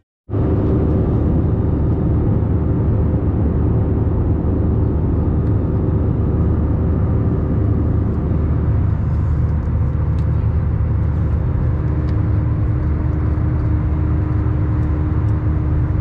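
Cabin noise of an Airbus A320-family jet airliner in flight: the steady, deep rumble of the jet engines and the air rushing past the fuselage, with a faint steady hum. It cuts in abruptly just after the start and then holds even.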